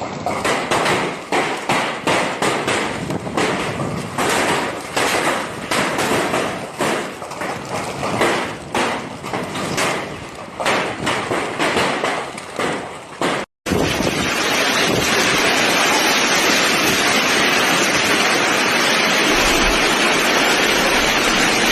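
Storm noise: about 13 seconds of gusting, uneven noise with many quick surges, then after a short break a steady, dense hiss of a heavy downpour, as in a hailstorm.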